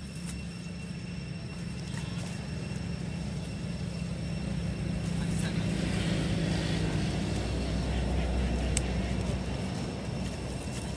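A motor vehicle passing: its low engine rumble builds, is loudest a little past the middle, and fades near the end.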